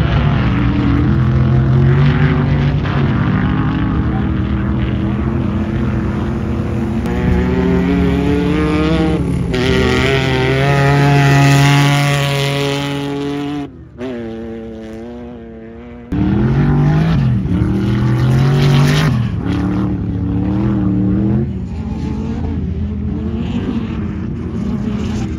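Sand drag cars' engines running at full throttle, their pitch climbing in steps and dropping again, loudest a little before midway. The sound drops off sharply a little past halfway, then another engine comes in and climbs in pitch as it accelerates.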